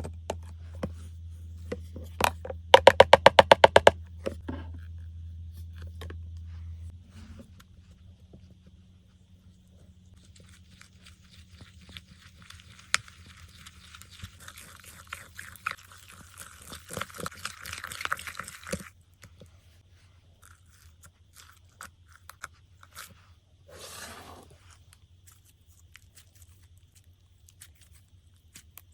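Slime being squeezed and pressed with crushed eyeshadow worked into it: crackling and small pops. About three seconds in comes a quick run of loud, sharp clicks, and a denser spell of crackling fills the middle.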